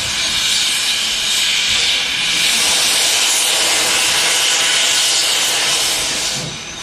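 ÖBB class 93 steam tank locomotive 93.1455 venting steam through its open cylinder drain cocks: a loud, steady hiss that dips near the end and comes back.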